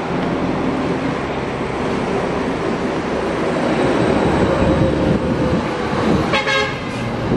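Steady rumble of traffic and engines, with one short horn toot about six seconds in.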